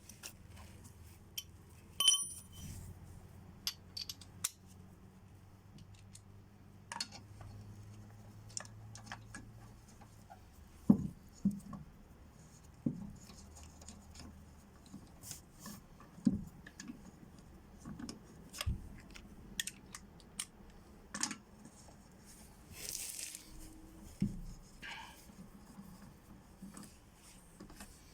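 Scattered metal clinks and knocks of tools and wheel hardware being handled while a car wheel is refitted, with one short ringing metallic strike about two seconds in and a heavier knock about eleven seconds in.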